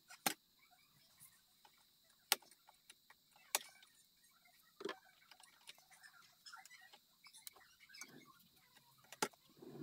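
Small metal clicks and taps from a mantel clock's brass bezel door and hands being handled as the hands are taken off the dial. There are a few sharp clicks at uneven intervals, with fainter taps between them.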